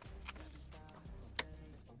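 Faint background music with light ticks and one sharper click about one and a half seconds in.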